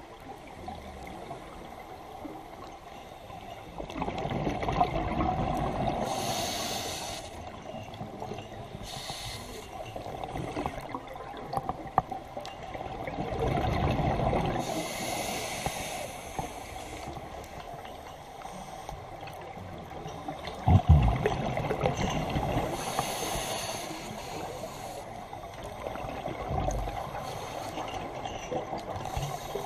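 Scuba diver breathing through a regulator underwater: a hiss on each inhale, then a rush of exhaled bubbles, repeating over several breaths. A sharp knock sounds about two thirds of the way through.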